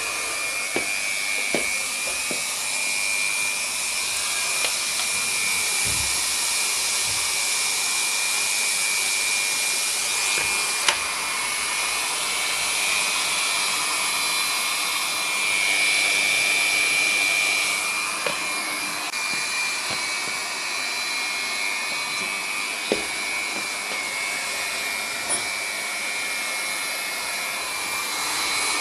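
Automatic hot-air banner welding machine running, its Leister hot-air gun blowing with a steady rush and a high whine as it welds a banner seam. A few short clicks are heard, about eleven seconds in and again later.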